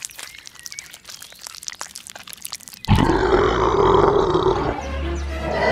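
Soft scattered clicks, then about three seconds in a sudden loud creature roar sound effect, which eases off and swells again into a second roar near the end.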